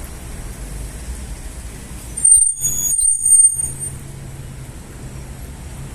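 Street traffic rumbling, with a vehicle's brakes squealing sharply and high-pitched in two runs a little over two seconds in, lasting about a second and a half.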